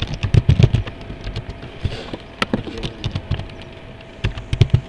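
Computer keyboard typing: irregular keystroke clicks, busiest about half a second in and again near the end.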